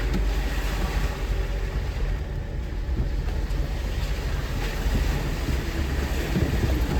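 Jeep driving slowly on a rough off-road trail: a steady low engine and drivetrain rumble with scattered knocks and rattles.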